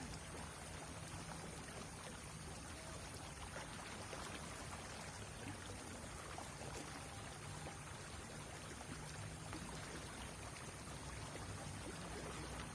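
A small river flowing steadily, a continuous trickling rush of water.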